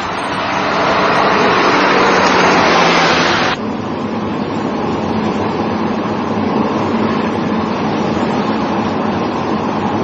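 A taxi driving along a street, its road and engine noise swelling over the first few seconds and cutting off suddenly, followed by the steady low rumble heard from inside a moving car.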